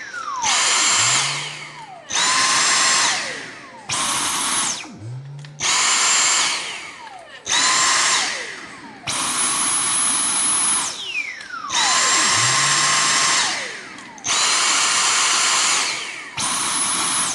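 Dyson cordless stick vacuum motors switched on in short bursts, about nine times. Each burst spins up to a loud, high, steady whine and, on release, winds down with a falling whine.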